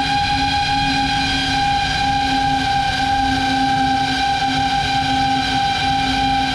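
FPV quadcopter's brushless motors and propellers whining at a steady pitch while cruising at constant throttle, with wind rushing over the onboard camera's microphone.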